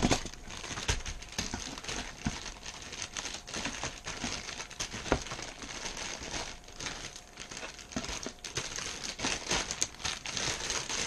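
Sealed plastic bags of model-kit runners crinkling and rustling as they are lifted and shuffled in a cardboard box, with scattered sharp clicks and taps of the bagged plastic parts knocking together.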